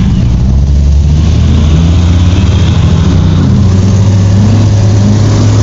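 Nissan Hardbody pickup's engine revving while it is stuck in deep mud, its pitch rising and falling, then held steadier near the end.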